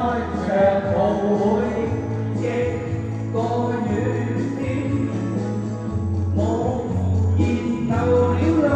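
Pop song music with a melody over a steady bass line, most likely the instrumental break of the backing track between verses.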